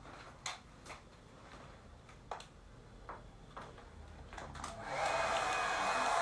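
A few faint knocks and clicks of handling, then about five seconds in a handheld hair dryer switches on and runs with a steady blowing rush, drying spray paint between stencil layers.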